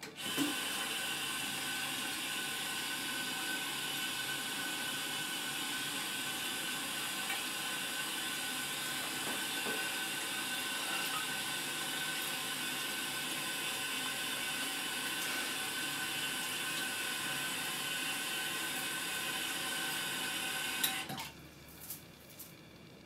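Bathroom sink tap running in a steady stream of water, then shut off about 21 seconds in.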